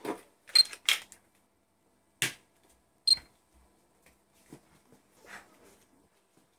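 Nerf blaster mechanism clacking: a handful of sharp plastic clicks and snaps, the loudest in the first second and two more about two and three seconds in, two of them with a brief metallic spring ring, then a few fainter clicks.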